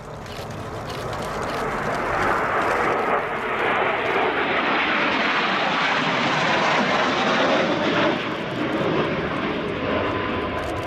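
Two EAV-8B+ Harrier II jets flying past in formation. The noise of their Rolls-Royce Pegasus turbofans swells over the first two or three seconds, then holds loud and eases slightly near the end.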